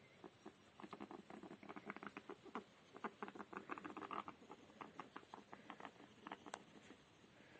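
Pet rat snoring: a quiet, rapid, irregular run of clicking, crackling breath noises, thickest for the first few seconds and thinning toward the end. The rat is ill and on medication.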